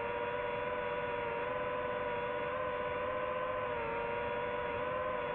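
DJI FPV drone's motors and propellers whining steadily in flight, heard from the drone itself, with the pitch wavering slightly with throttle and dipping briefly near the end.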